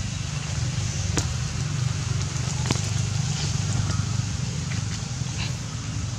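Outdoor ambience: a steady low rumble with an even hiss over it, broken by a few sharp ticks, one about a second in and one near the middle.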